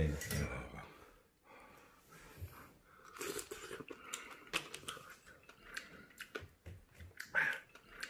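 Close-up chewing of clams from seafood ramen, with gritty crunching of sand between the teeth: the clams were not cleaned of sand. A brief louder sound comes at the very start.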